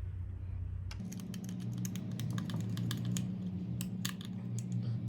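Irregular small clicks and taps from hand tools and wires being worked into a wall switch's screw terminals. A steady low hum starts about a second in.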